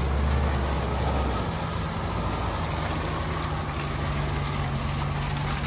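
Off-road vehicle's engine running as it drives on a mountain track. Its steady low note steps up to a higher pitch about a second and a half in.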